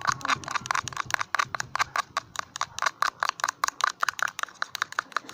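Spoon beating slime in a tub: a fast, even run of clicks and taps, about seven a second.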